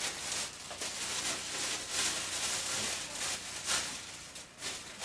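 Gift wrapping rustling and crinkling in irregular surges as a present is unwrapped by hand. It dies down shortly before the end.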